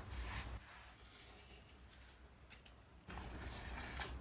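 Faint eating sounds: instant cup noodles being slurped and chewed, with a few light clicks of utensils against the cups. Quieter in the middle, picking up again about three seconds in.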